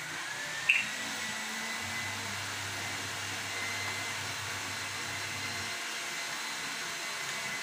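A steady whooshing noise like a blower motor running, with a faint whine that rises as it comes up to speed and then holds steady. A single short clink sounds under a second in.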